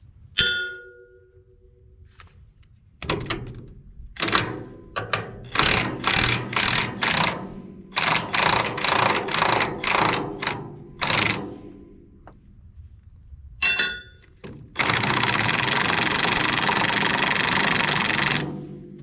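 Metal tools working on a steel machine: a ringing clink, then a run of about a dozen knocks at roughly two a second, another clink, and a steady rushing noise lasting about four seconds near the end.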